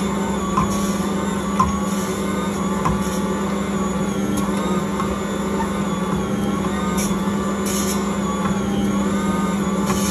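Ankarsrum Original Assistant stand mixer running steadily as its stainless steel bowl turns, kneading pizza dough against the roller and scraper. Soft knocks come about once a second during the first few seconds as the dough ball turns against the bowl.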